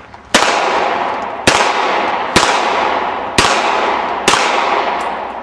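Five handgun shots fired about one second apart, each a sharp crack that rings off into a long echo.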